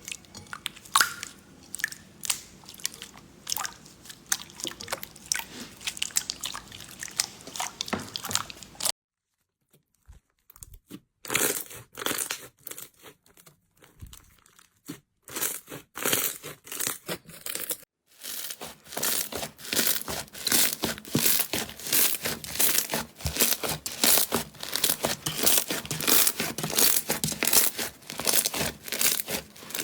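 Hands squeezing and poking slime: a dense run of crackling clicks and pops, in three separate clips that break off briefly about a third and two thirds of the way through.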